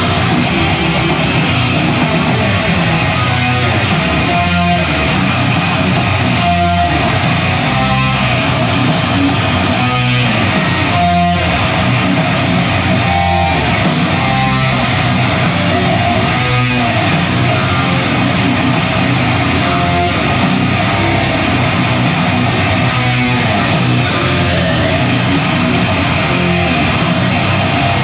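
Jackson electric guitar played through an amplifier: continuous heavy metal riffing without a pause.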